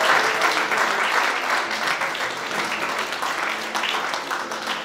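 Audience applauding steadily, with a few voices mixed in.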